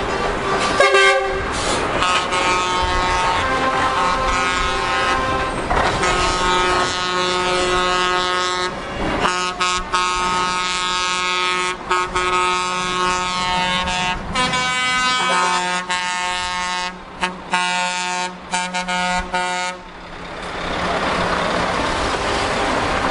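Lorry air horns sounding in long, repeated blasts as a convoy of trucks drives past, with diesel engines running underneath. Near the end a truck passing close adds a swell of engine and tyre noise.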